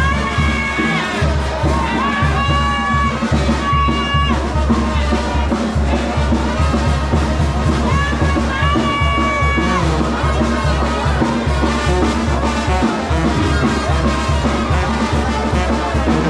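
Brass band music: trumpets playing phrases of long held notes over a steady bass beat.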